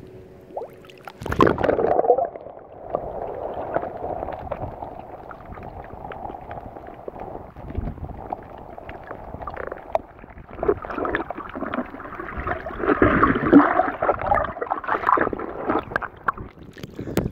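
Sea water sloshing and gurgling around a phone held at the surface and dipped under, muffled underwater, with many small crackling clicks. There is a loud splash about a second in, and the sloshing gets louder for a few seconds about three quarters of the way through.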